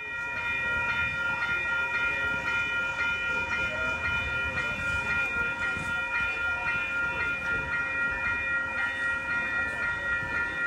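Railroad grade crossing bell ringing steadily, a held ringing tone with a fast, even beat, over a low rumble.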